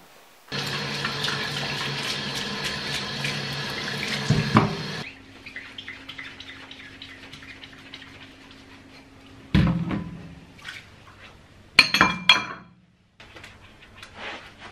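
Kitchen tap running into a stainless steel sink for a few seconds, then turned off. Ceramic bowls clink and knock against the steel sink as they are washed by hand, with a loud clatter about twelve seconds in.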